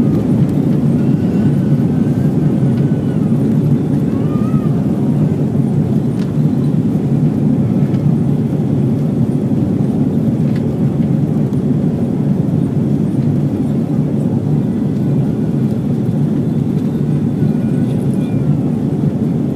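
A jet airliner's engines at takeoff power, heard from inside the cabin as a steady, even low roar during lift-off and the initial climb.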